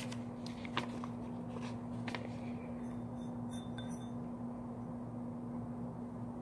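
A steady low hum, with a few light clicks and taps in the first two seconds and a few more about four seconds in as brush and paint supplies are handled on the table.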